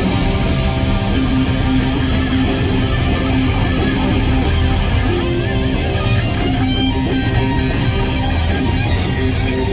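Live hard rock band playing an instrumental stretch with no vocals: electric guitar out front over bass guitar.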